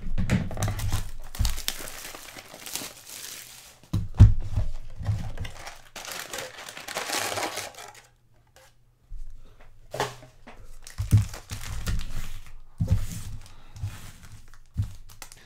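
Plastic wrapping crinkling and tearing as a sealed hobby box of trading cards and its packs are opened by hand, with a few sharp knocks from handling the box. The rustling stops briefly about eight seconds in.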